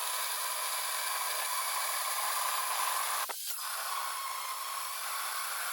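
Power grinder with a cut-off wheel cutting through a well pump's metal casing: a steady high-pitched grinding hiss that briefly dips a little past halfway.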